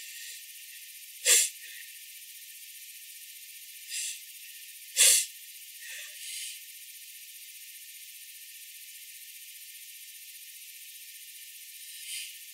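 A person sneezing twice: two short, sharp sneezes, about a second in and about five seconds in, with a few quieter breathy sounds around them.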